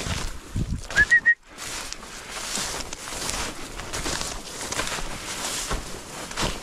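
A short whistle about a second in, rising and then held briefly, from the hunter calling his bird dog. After a sudden break, steady rustling and brushing of walking through dry field cover.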